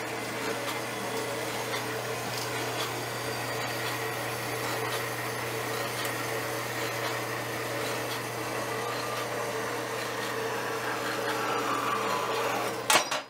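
Horizontal metal-cutting bandsaw running steadily, its blade cutting through an aluminum block under flood coolant, over a constant motor hum. One sharp clack near the end, after which the sound drops.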